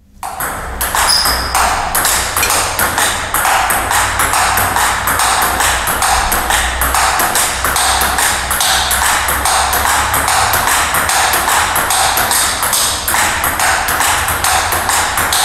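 Table tennis rally: a 40+ plastic ball clicking back and forth off the bats and bouncing on the table, many sharp strikes in quick succession without a break.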